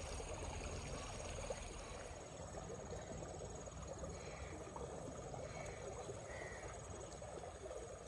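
Outdoor ambience of insects trilling steadily, with a few faint, short chirps in the second half.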